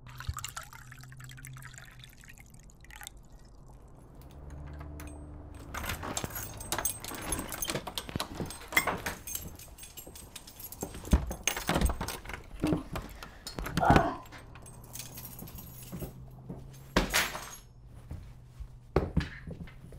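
Wine pouring into a glass jar at the start, then a string of clicks, knocks and thunks from a front door being worked with keys, opened and shut.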